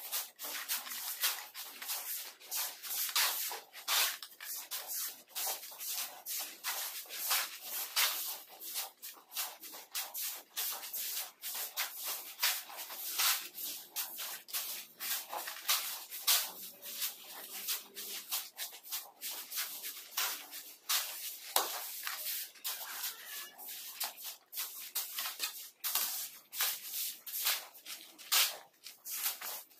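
Shovels and a hoe scraping through a gravelly sand-and-cement mortar mix on a concrete slab: repeated rough, gritty scrapes one after another as the mix is turned over by hand.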